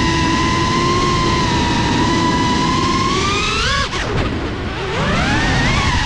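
GEPRC Cinelog 35 FPV drone's motors and propellers whining steadily, then rising in pitch and cutting back sharply about four seconds in, and rising and wavering again near the end as the throttle is worked.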